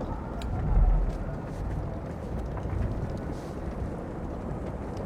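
Dense, low rumbling noise that swells briefly about a second in, with a few faint clicks over it.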